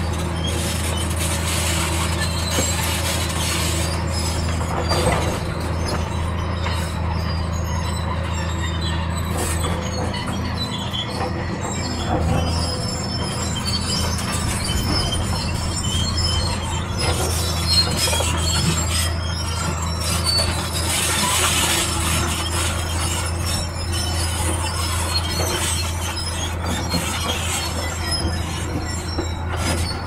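Bulldozer's diesel engine running steadily, with high metallic squealing and squeaking from its steel crawler tracks as it moves.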